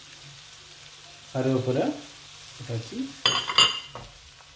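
Garlic frying in hot oil in a pan with a steady sizzle. A short pitched scraping sound comes about a second and a half in, and two sharp metal clinks of a utensil against the pan near the end.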